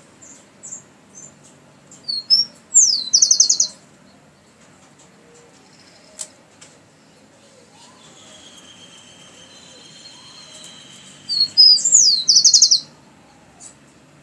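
Rufous-collared sparrow (chingolo) singing twice, each song a few high slurred whistles ending in a fast trill. A few soft high chips come before the first song.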